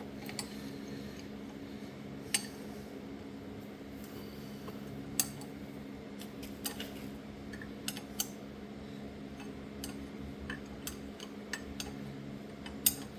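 Scattered sharp metal clinks of a 9/16 wrench working the distributor's mounting bolt and stud nut on a tractor engine, over a steady low hum.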